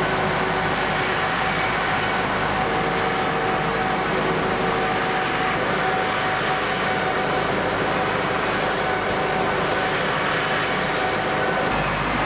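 Machinery of air-defence vehicles running: a steady, even drone with a few faint steady whining tones over it.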